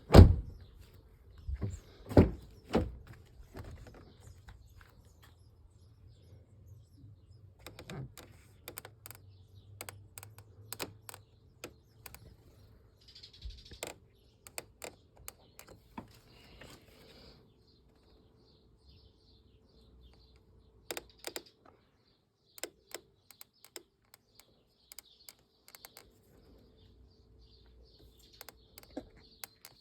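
Interior trim squeaking and clicking in the cabin of a Volkswagen Passat B8: a series of short, irregular squeaks and knocks, loudest in the first few seconds, over a low rumble that fades out after about eleven seconds. It is a build-quality fault.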